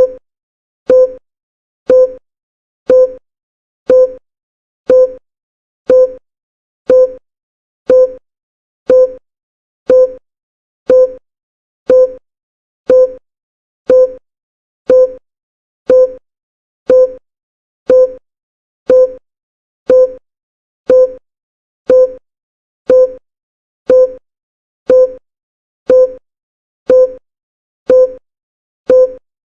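Countdown timer sound effect: a short, pitched blip once every second that dies away quickly, with silence between the blips.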